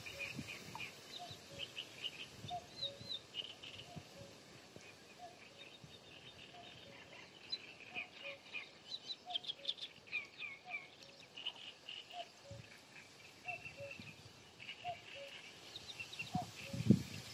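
Common cuckoo calling its two-note falling 'cu-ckoo' over and over at an even pace. Other small birds chirp and trill higher above it. A few low thumps come near the end.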